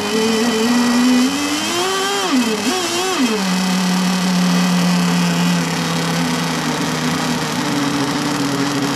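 Pro Boat Blackjack 26's small two-stroke nitro glow engine running on its first fire-up, building up a little heat. It revs up once, dips, gives two quick throttle blips, then settles back to a steady idle that rises slightly near the end.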